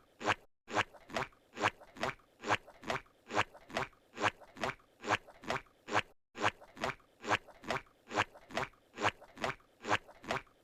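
Squidward's cartoon footstep sound effect from SpongeBob SquarePants, the squishy, suction-cup slap of his tentacle feet, repeating in a steady walking rhythm of about two and a half steps a second. The loop cuts out to silence for a moment twice.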